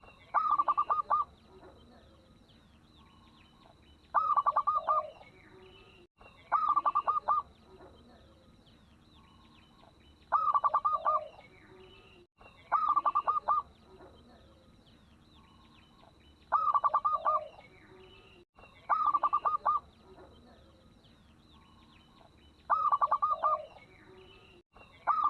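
Zebra dove (local perkutut) cooing: a quick run of pulsed cooing notes ending on a lower note, repeated about every three seconds. Faint chirps of other small birds behind it.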